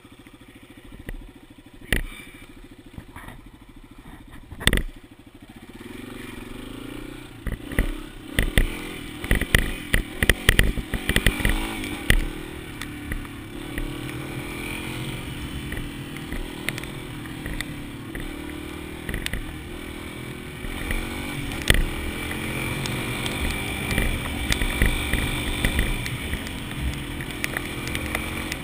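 A 2013 Yamaha XT250's air-cooled single-cylinder engine idles, with a couple of sharp knocks. About six seconds in it pulls away, its pitch rising and falling as the bike rides on, with a burst of knocks and clattering around eight to twelve seconds in.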